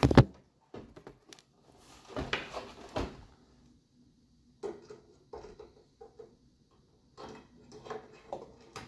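A fluorescent tube being handled and fitted into a ceiling fixture's lamp holders: a sharp click at the start, then scattered light taps, scrapes and clicks with short quiet gaps as the tube's pins are worked into the sockets.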